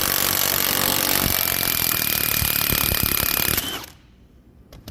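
High-torque half-inch impact wrench hammering rapidly on a 17 mm swivel impact socket, driving a grade 8.8 metric bolt until the bolt strips. The hammering stops abruptly near the end, and a single sharp click follows.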